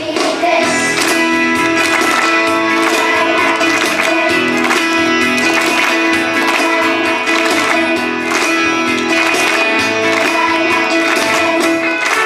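Instrumental music with plucked and strummed guitar, steady and without singing.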